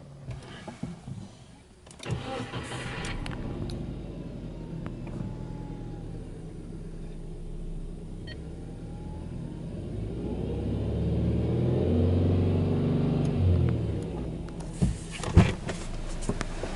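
Subaru Legacy B4 2.0GT's turbocharged flat-four engine being started, catching about two seconds in, then idling steadily as heard from inside the cabin. The idle grows louder for a few seconds in the second half, and a few sharp knocks come near the end.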